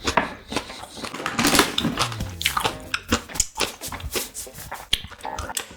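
Close-miked chewing and wet mouth sounds of someone eating grilled pork intestine (makchang), with many irregular clicks and smacks and a brief low hum about two seconds in.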